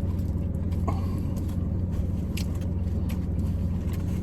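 Steady low hum of a car engine idling, heard from inside the cabin, with a few soft ticks of chewing.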